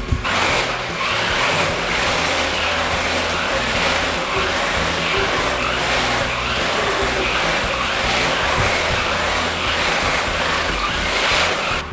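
GP Toys Venom Hunter S921 RC car's two electric motors whirring as it drives around on a hard wood-look floor, its tyres running on the boards.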